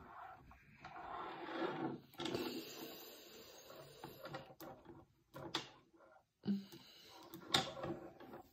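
Light wooden clicks and knocks of Jenga blocks as one is pushed out of the tower and set on top, with a few sharp taps about halfway through and the loudest one near the end.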